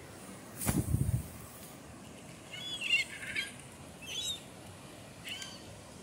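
Gulls giving short calls, a cluster about two and a half seconds in and single calls at about four and five seconds, over a steady hiss of surf. The loudest sound is a brief low rumble on the microphone about a second in.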